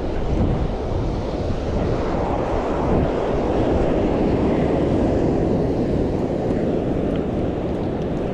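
Ocean surf washing on the beach with wind buffeting the microphone, a steady rushing that swells a little midway.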